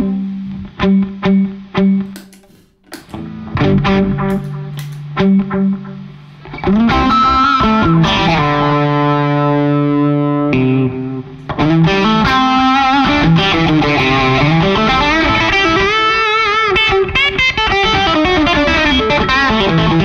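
Distorted single-coil electric guitar played through an Officina Elettrica StompAmp Brown pedal preamp with delay added. It starts with separate picked notes, then a long sustained note from about seven seconds, then a continuous lead line with string bends and vibrato.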